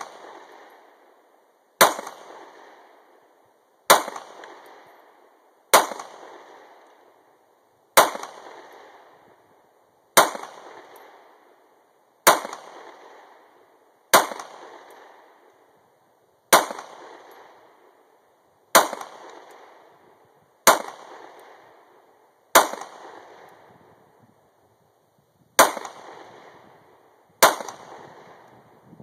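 Glock 19C 9mm pistol fired in slow single shots, about one every two seconds, thirteen in all, each sharp crack trailing off in an echo over a second or so.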